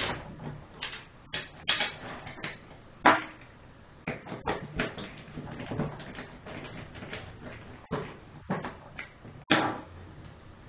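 Screws being fitted and turned by hand to fasten an aluminium gate-rack segment onto a steel bar on a wooden table: scattered clicks, knocks and scrapes of metal parts, the loudest a sharp knock about three seconds in.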